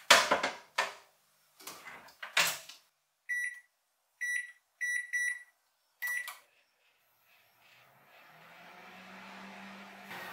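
A few knocks and clunks, then five short keypad beeps, and about a second later a microwave oven starts running with a steady hum.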